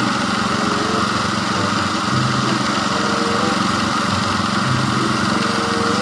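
Concrete mixer truck's diesel engine running steadily while the drum turns and discharges concrete down the chute.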